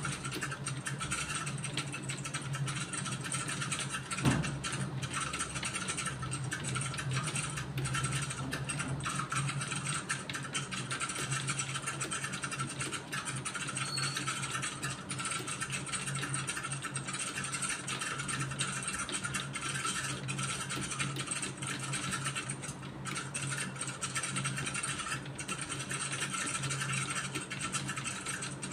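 Computer keyboard typing: irregular light keystroke clicks over a steady background hum and hiss, with one louder knock about four seconds in.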